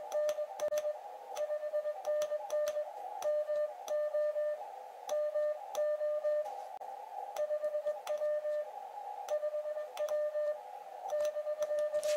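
Morse code sent on an Elecraft KX2 transceiver with a paddle: the CW sidetone, a steady tone keyed in rapid dots and dashes with short pauses between groups. Small clicks from the paddle fall with many of the keyed tones, and receiver hiss fills the gaps.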